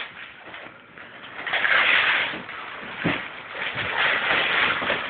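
Wrapping paper and cardboard tearing and rustling as a large gift is ripped open, in two spells with a short knock about three seconds in.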